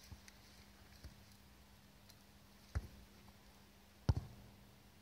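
Dull thuds of a football being kicked on grass, the loudest about four seconds in, with a fainter thud over a second earlier.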